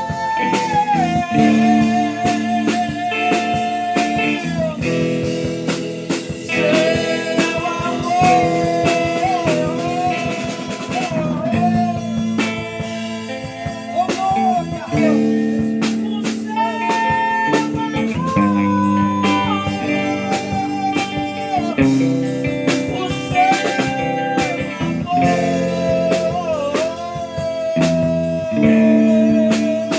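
Blues-rock music: an electric guitar playing sustained lead notes with vibrato over chords, with a drum kit keeping time.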